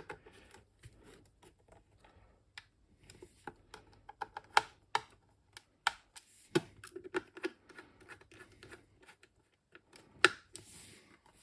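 Irregular light clicks and scratches of a hand precision screwdriver and small parts being handled while screws are driven, with a few sharper clicks now and then.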